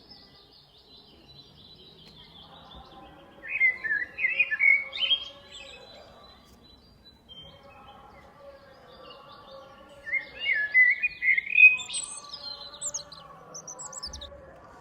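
A songbird singing two loud phrases of rapid chirping notes, one about 3.5 seconds in and one about 10 seconds in, the second ending in a few thin high notes.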